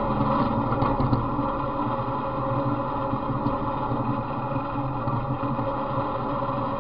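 Off-road riding mower's small engine running steadily as the machine travels along a slushy trail. The owner says the motor has a knock, which he has tried to quiet with straight 40-weight oil and STP oil treatment.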